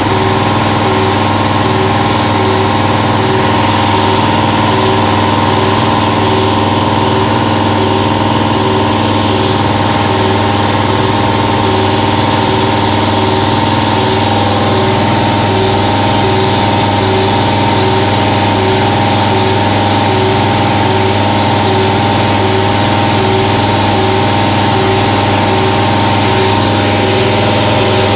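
1995 Haas VF-3 CNC vertical mill cutting: the spindle runs at steady speed as a small end mill pockets slots into a metal fixture block. It gives a steady machine whine with a high hiss, and a faint note pulses a little more than once a second as the tool engages.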